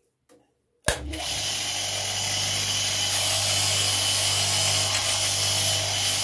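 Bench grinder running with a steady motor hum and a hiss of grinding as a piece of beef bone is pressed against its wheel to smooth it. The sound starts suddenly about a second in.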